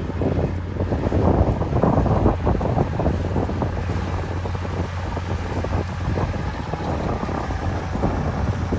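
Tractor pulling a Göweil G1 Kombi baler-wrapper, its engine and the baler running steadily with a low hum, under heavy wind buffeting on the microphone.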